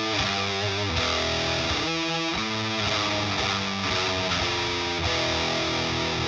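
Electric guitar played through a Frank the Anvil FX Kitsune fuzz pedal, a hand-built modified Big Muff. It plays a heavily distorted riff of held notes and chords that change every half second or so, with long sustain.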